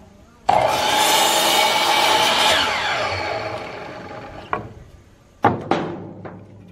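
Sliding compound miter saw switched on with a sudden whine and cutting through a wooden board, then winding down with falling pitch over about two seconds. A click and two sharp wooden knocks follow near the end as the board is handled.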